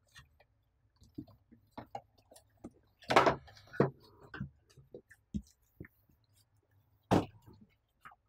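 Unboxing handling noise: a cardboard box and bundled cables being shifted, with scattered clicks and light knocks. A speaker subwoofer cabinet is set down on a workbench with a heavier knock and a short rattle about three seconds in, and another sharp knock near the end.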